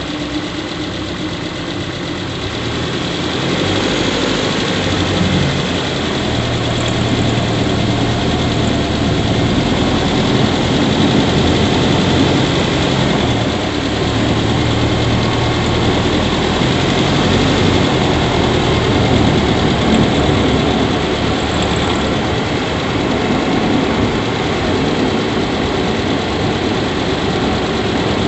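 Subaru Levorg 1.6GT-S's 1.6-litre turbocharged flat-four idling steadily, heard in the engine bay, growing a little louder about three seconds in. The owner is chasing an odd squeaking ('kyuri') noise from the engine bay, which he says grows louder as the engine runs.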